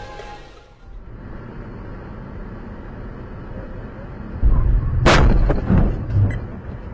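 Car collision heard from the dashcam inside the car: steady road noise, then a heavy low rumble and a sharp bang of impact about five seconds in as the car hits an SUV, followed by smaller knocks and rattles.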